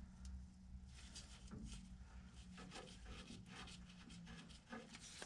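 Near silence with faint, irregular small clicks and rubbing as gloved hands handle tools and steering parts, over a faint steady low hum.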